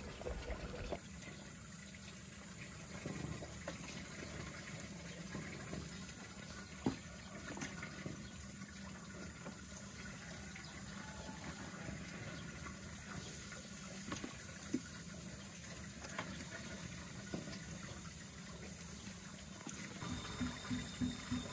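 Marinated meat sizzling steadily on a wire grate over hot charcoal, with a few sharp pops.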